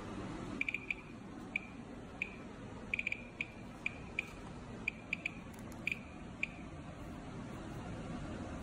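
Thermo Scientific RadEye G20-10 gamma survey meter beeping: about fifteen short, high electronic beeps at irregular intervals, some in quick runs of two or three, over a faint steady hiss.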